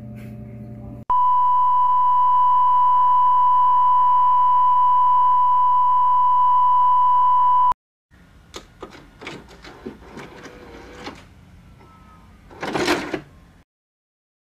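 A steady, loud electronic beep tone, like a broadcast test tone, holds for about six and a half seconds and cuts off suddenly. After it come a few faint clicks and knocks, with a louder noisy burst near the end.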